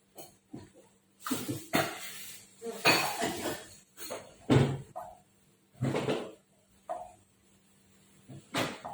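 A metal spoon knocking and scraping against a cooking pot and pan: irregular clinks with several longer scrapes, as the sautéed spice paste for chicken soup is scraped into the pot.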